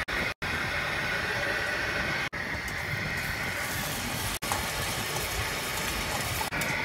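Steady running noise of a fishing boat's engine, broken four times by split-second drop-outs.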